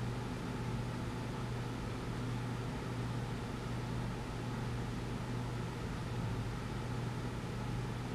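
Steady low hum with an even hiss of background room noise.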